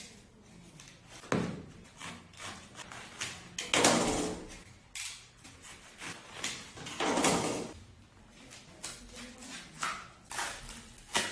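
Cutting knife slicing through a vinyl-covered foam mat along a ruler: several drawn strokes, each under a second, with clicks and knocks from handling the mat and ruler.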